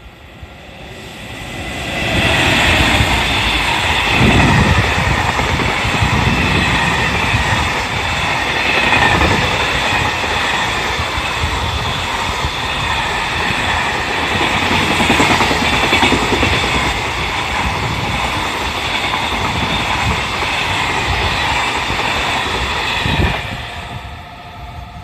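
Container freight train hauled by an EF210 electric locomotive passing through the station without stopping: steady rumble and clickety-clack of the wagon wheels on the rails. It builds up over the first two seconds and falls away sharply near the end as the last wagon goes by.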